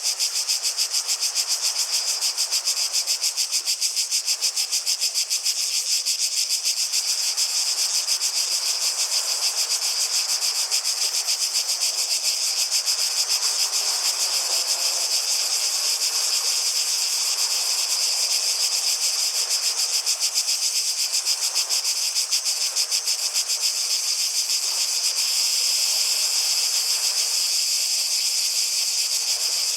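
Cicadas buzzing in a steady, high-pitched chorus with a fast, even pulse.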